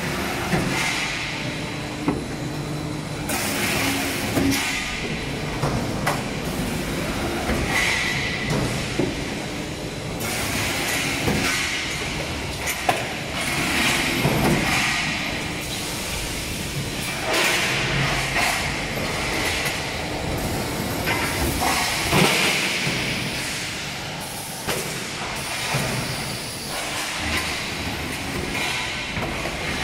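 CHG-25×3200 guillotine shear line with automatic feeding and stacking, running: a steady metallic clatter and rumble of the rollers and machinery, with a hiss coming back every few seconds and a few sharp knocks.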